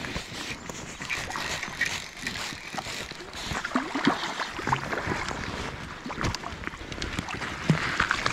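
A hooked rainbow trout thrashing and splashing at the surface of a small stream, over the steady rush of the flowing water. Near the end, wading boots splash through the shallows.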